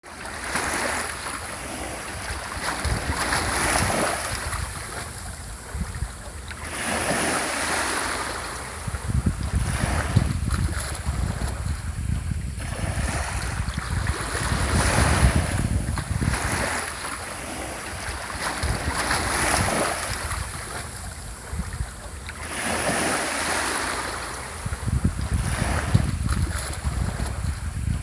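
Small sea waves washing onto the shore, the hiss of surf rising and falling in a new surge every three to four seconds. Wind buffets the microphone with a low rumble underneath.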